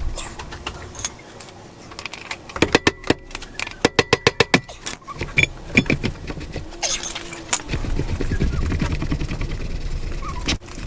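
Loose metal motorcycle parts clinking and rattling as the rear axle and its spacers are pulled out and handled, including a quick run of sharp metallic clicks a few seconds in. A low rubbing rumble follows near the end.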